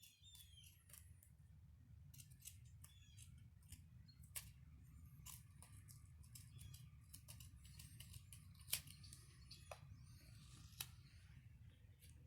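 Scissors cutting cloth tape: a string of faint, irregular snips and clicks, the loudest about nine seconds in, over a low steady hum.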